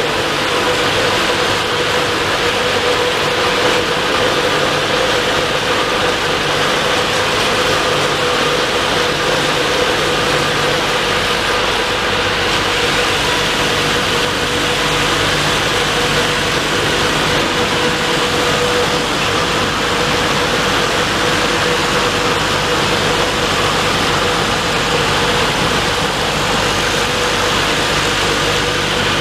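WashTec car wash dryer's big blower fans running at full power as the dryer passes over a car: a steady rush of air with a steady hum and whine.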